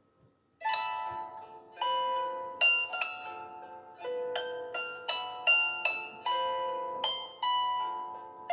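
A built-in ringtone of a Samsung Galaxy Tab3 Lite tablet starting about half a second in after a short silence. It plays through the tablet's speaker as a melody of struck notes and chords, each dying away, one or two a second.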